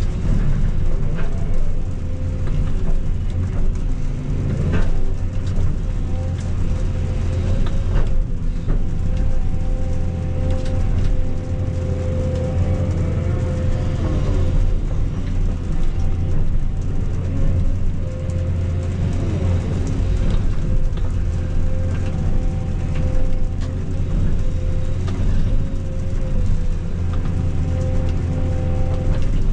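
Excavator's diesel engine running steadily with a steady hydraulic whine, and scattered sharp cracks and knocks as it handles brush.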